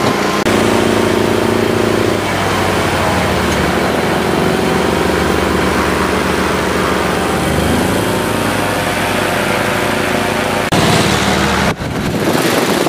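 A small engine running steadily at an even idle-like pace, its pitch shifting abruptly a few times.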